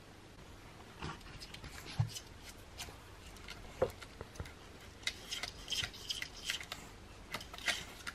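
A pug puppy's claws scratching and scraping at a painted wall in short irregular strokes, most of them in the second half.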